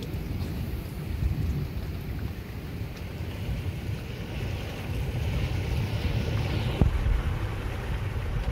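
Wind buffeting the microphone, a steady low rumble, with a fainter hiss that swells between about three and seven seconds in.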